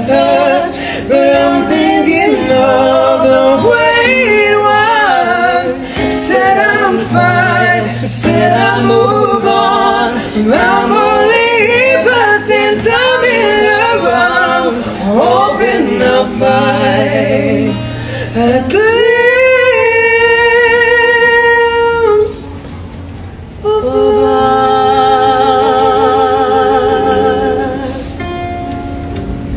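Live acoustic music: a woman and a man singing with runs and vibrato over two acoustic guitars. A long held note ends about three-quarters of the way through, followed by softer held singing and guitar.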